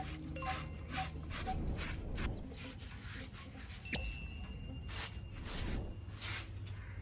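Repeated rough scraping or rubbing strokes, about two to three a second, with a sharp click and a brief ring about four seconds in.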